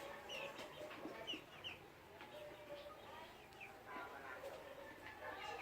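Chickens clucking, with many short, high, falling chirps throughout.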